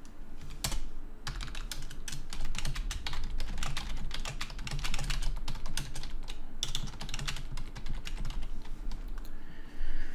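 Fast typing on a computer keyboard: a quick run of keystroke clicks, pausing briefly about a second in and again near the end.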